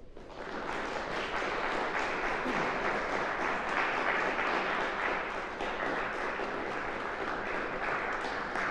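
Audience applauding, swelling quickly over the first second and then holding steady.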